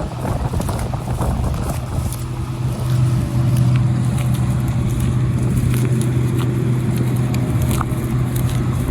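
An engine runs at a steady pitch, a constant hum that grows a little louder about three seconds in, with faint scattered clicks over it.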